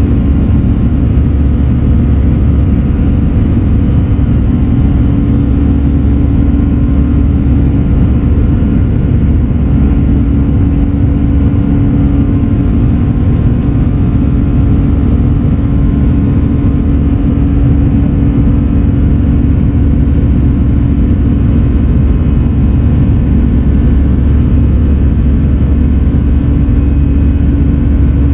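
Airbus A319 jet engines at climb power, heard inside the cabin: a loud, steady drone with a deep rumble and a constant low hum.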